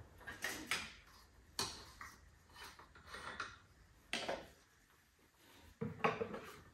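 Scattered light clicks and knocks of a funnel being handled and set into a truck's engine bay.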